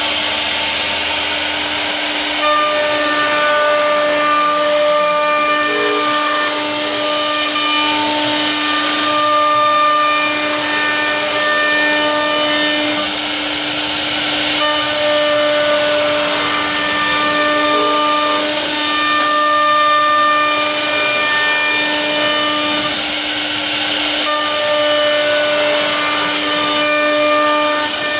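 CNC router spindle running with a steady whine while its carving bit cuts a relief pattern into a wooden panel, with a hiss from the cut. Higher whining tones start and stop every few seconds as the machine moves.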